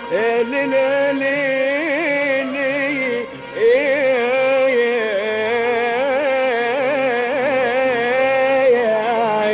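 Live Arabic classical music: a sustained, ornamented melody with wavering pitch and slides, breaking off briefly about three seconds in and rising back in.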